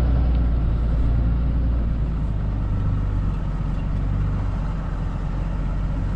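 Pickup truck with a camper driving off across a dirt lot, heard from inside the cab: a steady low engine and tyre rumble.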